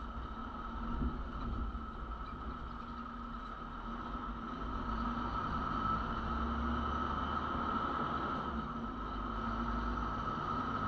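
A truck driving: steady engine and road noise with a constant whine, heard from the outside of the cab. The low rumble grows a little louder about halfway through.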